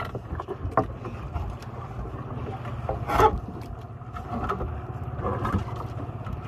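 Steady low rumble of wind and sea around a small wooden outrigger boat, with scattered knocks and one louder thud about three seconds in as the speared barracuda and the spear shaft through it are handled.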